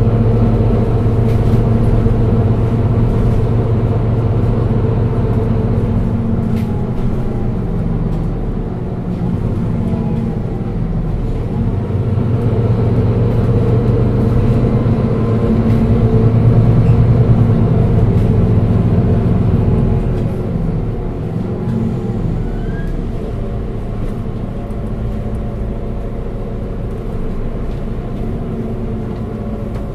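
Mercedes-Benz Citaro 2G Euro 6 city bus engine running under way. It grows louder from about twelve seconds in, then eases off and quietens after about twenty seconds.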